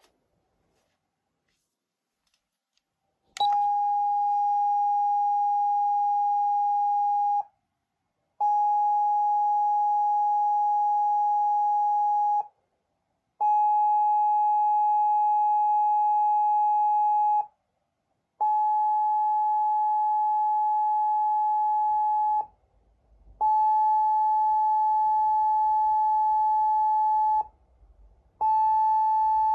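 Clarion A-600F siren amplifier sounding a hidden tone selected on its DIP switches: a steady, unchanging high beep held about four seconds at a time with about a second's gap, repeating. It starts a few seconds in with a click.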